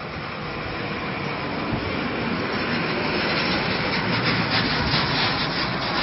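A burning truck: a steady rushing noise of fire that slowly grows louder, with sharp crackles in the last couple of seconds.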